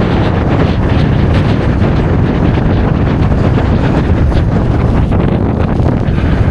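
Strong wind blowing across the microphone: a loud, steady rumble with a hiss over it.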